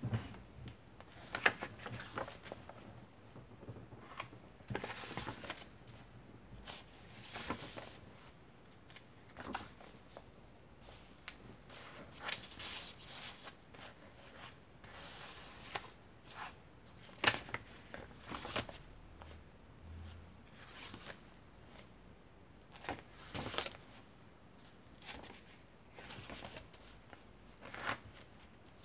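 Vintage paper pages of a thick handmade junk journal being turned and handled: irregular soft rustles and crisp paper flicks every second or so, with a few sharper snaps.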